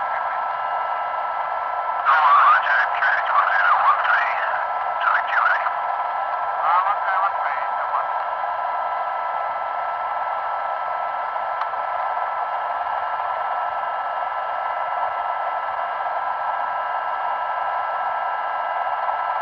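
Radio channel noise: a steady narrow-band hiss with several constant whining tones through it. Garbled voice fragments break through from about two to five seconds in and again briefly near seven seconds.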